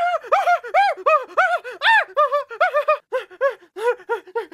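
Cartoon beaver character's high-pitched voice snickering in a run of short repeated 'heh' syllables, about four or five a second, quickening and dropping lower in pitch toward the end.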